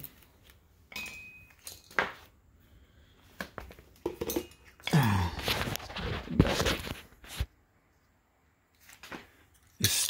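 Handling noise from a phone camera being lifted and moved: scattered knocks and rustles, with a short low falling sound about five seconds in. The sound drops out completely for about a second and a half past seven seconds.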